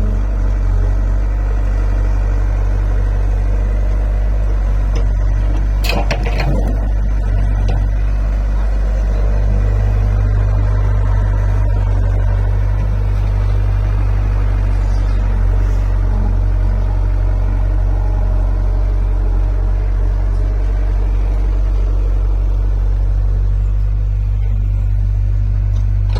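Excavator's diesel engine running steadily with a deep rumble, with a brief clattering burst about six seconds in.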